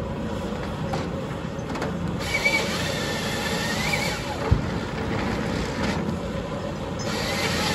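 Caterpillar tracked excavator with a timber grapple running, its diesel engine working steadily as it handles logs. A wavering high squeal sounds from about two seconds in for a couple of seconds, and a brief low thump comes just after the middle.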